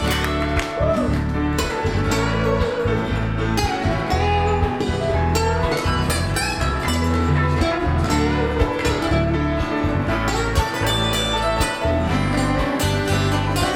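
A band playing an instrumental passage: guitar over steady bass notes and a regular drum beat, with no singing.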